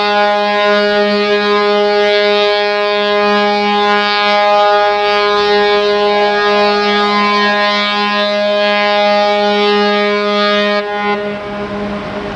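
Ship's horn sounding one long, steady blast as a ferry enters harbour; it stops about eleven seconds in, leaving only background noise.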